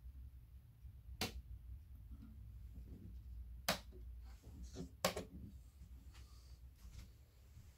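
Three sharp clicks, a second or more apart, as model railway points are switched by hand, over a steady low hum.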